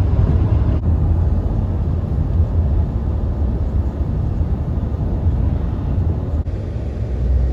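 Road and wind noise inside a moving car: a steady low rumble with a hiss over it, and no voices.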